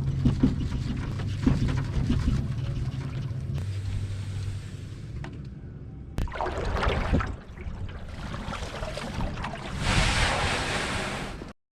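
A steady low motor hum for the first few seconds, then wind and water noise out on the water, with a loud rushing hiss in the last couple of seconds before it cuts off suddenly.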